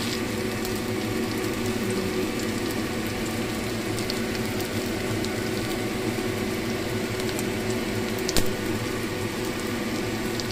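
Battered banana fritters sizzling and crackling in hot oil in a frying pan, with a steady hum underneath. One sharp knock comes about eight seconds in.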